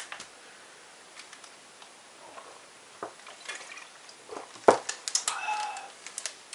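A man drinking lightly fizzy birch-sap kvass from a plastic bottle: swallowing, with a few sharp clicks and crackles of the plastic bottle in the second half, the sharpest about four and a half seconds in.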